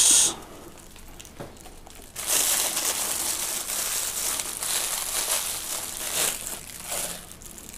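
Wrapping on a package being handled and crinkled. There is a short sharp rustle at the start, then steady crinkling from about two seconds in until near the end.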